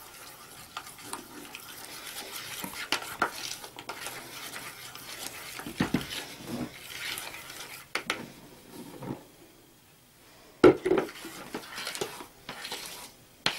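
Flour being poured from a plastic tub into a stainless steel pot and stirred in by hand: soft rustling and scraping with scattered knocks on the pot, the sharpest one near the end.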